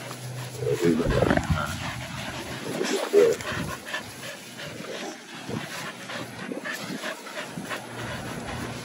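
Dogs at play, with a dog vocalizing briefly twice, about a second in and again around three seconds in, the second time louder.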